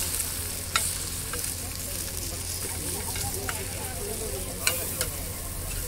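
Egg masala frying on a hot flat griddle pan with a steady sizzle. A metal spatula scrapes and taps sharply against the pan several times as the egg is turned and pressed.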